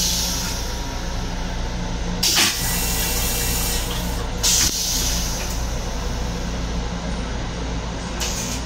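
LIRR M7 railcar toilet flushing: several short bursts of rinse-water spray into the stainless-steel bowl as it empties. Under them runs the steady hum of the moving railcar.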